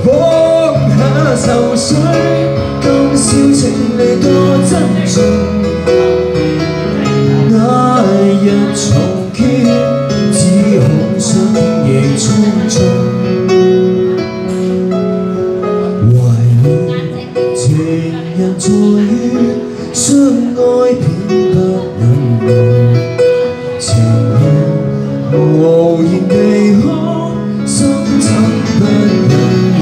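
Live song: a solo singer's voice through a microphone over chords played on a Roland XV-88 keyboard, steady and unbroken.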